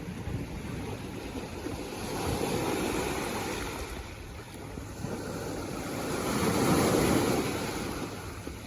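Sea waves washing in: a steady rush of surf that swells twice, about three seconds in and again, louder, near seven seconds, each time falling away again.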